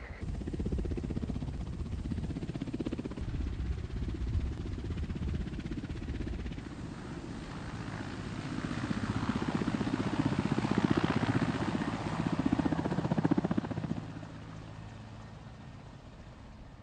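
Military helicopter flying low past, its rotor blades beating rapidly. It grows louder to a peak in the middle and fades away near the end.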